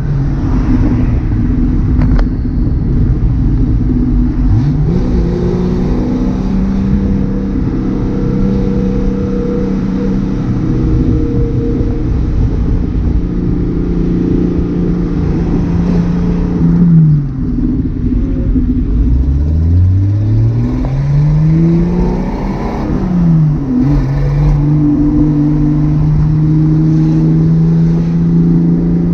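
Datsun 280Z straight-six engine and exhaust while driving, mostly holding steady cruising revs. Past the middle the revs fall away, then climb hard through a gear for about three seconds and drop at the next shift before settling back to a steady cruise.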